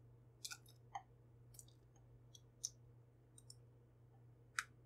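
Faint irregular clicks and clinks, some with a short ring, as mashed banana is tipped and scraped out of a white bowl into a glass mixing bowl. There are about seven of them, the loudest near the end.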